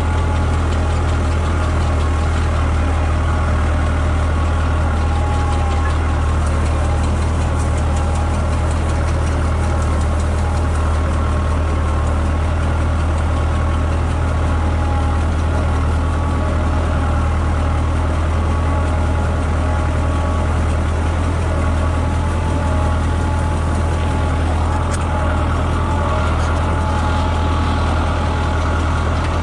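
An old farm tractor's engine running at a steady speed as it drives along the grove rows with its sprayer working: a deep, even hum that holds unchanged throughout.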